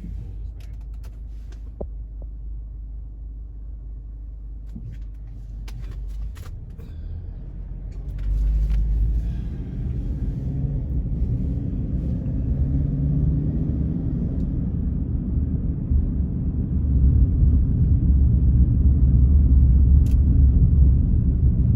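Low, steady rumble that gets louder about eight seconds in and again in the second half, with a few faint clicks.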